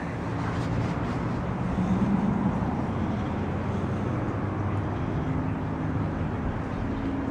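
Steady low mechanical hum with a hiss underneath, even throughout with no distinct events, in the hard-walled bay of a self-serve car wash.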